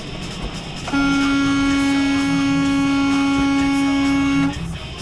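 Semi truck's horn sounding one long, steady, single-pitched blast of about three and a half seconds, starting about a second in, over the cab's road noise. It is a warning to a car that has cut in close ahead.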